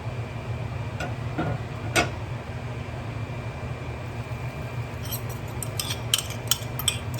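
Cooking utensils on a pan: a spatula knocks against it about one and two seconds in, then a quick run of light clinks and scrapes near the end, over a steady low hum.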